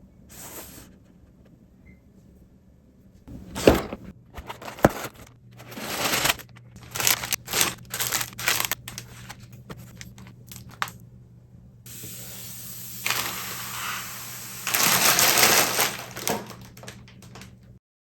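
A LEGO set box being opened by hand: cardboard tearing and plastic parts bags crinkling, heard as a run of sharp crackles and snaps, then steadier rustling near the end.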